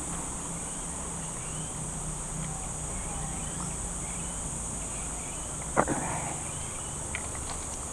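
Steady high-pitched insect buzzing, with faint chirps, and one sharp knock about six seconds in.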